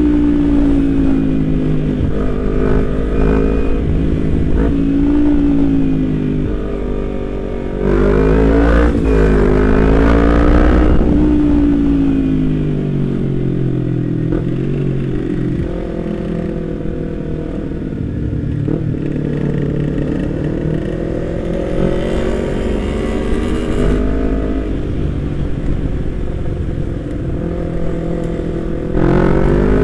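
A 2014 Kawasaki Z250's parallel-twin engine, breathing through a Prospeed aftermarket exhaust, is ridden through traffic. Its pitch rises and falls with the throttle and gear changes, and it grows louder about eight seconds in and again near the end, over steady low wind and road noise.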